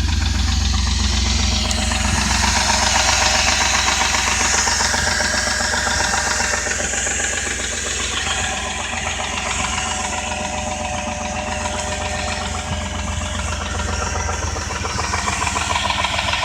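2001 Jeep Grand Cherokee's 4.7-litre V8 idling with a steady, rapid ticking. The owner cannot tell whether it is a rod knock, a lifter, the flywheel or the timing chain.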